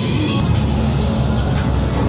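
Haunted-house maze soundtrack: music over a deep, steady rumble.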